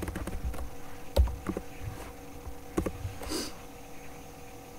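Scattered keystrokes on a computer keyboard: a handful of separate clicks spread over the first three seconds, the loudest about a second in, over a faint steady hum.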